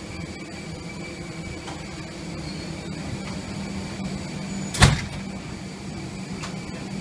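Steady mechanical hum with one loud, sharp knock a little before five seconds in.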